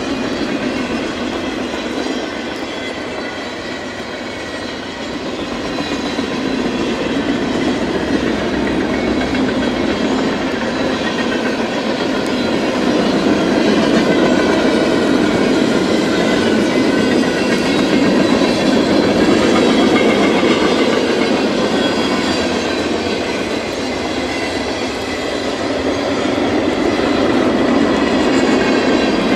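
Freight train rolling past, its cars' wheels clattering steadily over the rails, the rumble swelling and easing slightly.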